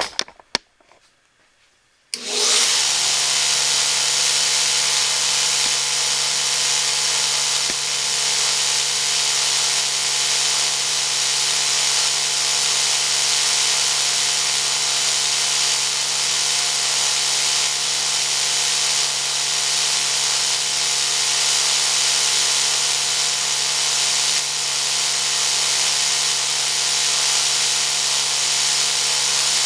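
Homebuilt 2x72-inch belt grinder switched on about two seconds in: its electric motor comes up to speed almost at once and then runs steadily, the abrasive belt hissing over the wheels with a steady hum underneath, running free with nothing being ground.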